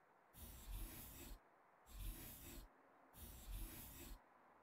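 Pen writing on a paper card: three separate strokes of about a second each, one for each digit of the key number.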